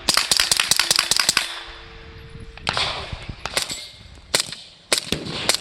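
A suppressed B&T GHM9 9mm carbine firing a quick string of about ten shots, then half a dozen more single shots at irregular intervals.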